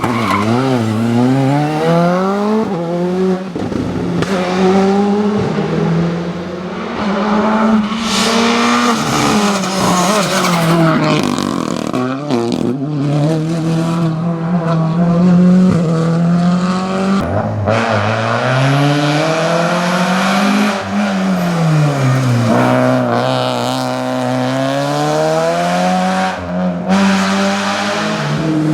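Rally car engine driven hard on a stage, its pitch climbing through the revs and dropping sharply at each gear change or lift, again and again, with brief sharp cracks between some of the pulls.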